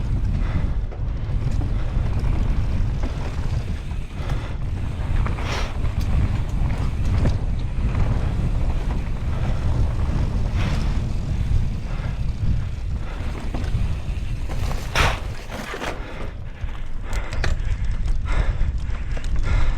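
Mountain bike riding fast over a rough trail: steady wind buffeting on the microphone and tyre rumble, with sharp rattles and knocks from the bike now and then, the loudest about fifteen seconds in.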